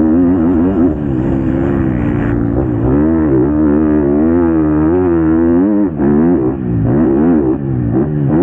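Motocross bike engine heard from on board, its revs rising and falling over and over as the rider works the throttle, with a few short drops in the second half where the throttle is chopped.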